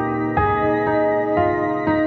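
Calm new-age style background music: sustained chords with notes changing about every half second.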